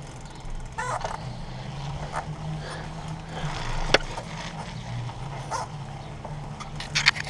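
Bicycle rattling and clicking as it rides over a concrete sidewalk, picked up by a GoPro mounted on it, over a steady low hum. There is a sharp knock about four seconds in and a burst of louder clatter near the end.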